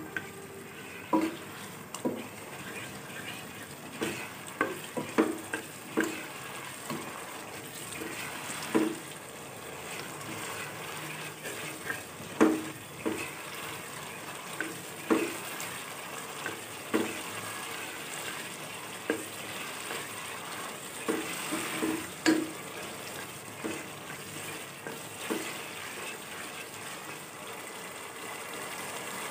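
Beef keema sizzling as it fries in oil in a nonstick pot, at the bhuna stage once its water has cooked off. A spoon stirs it, scraping and knocking against the pot every second or two.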